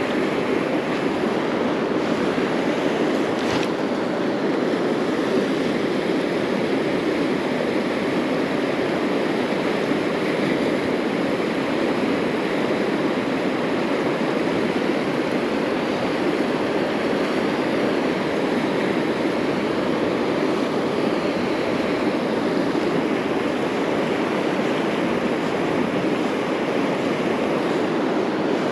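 Steady rush of flowing river water, an even noise without rhythm or break.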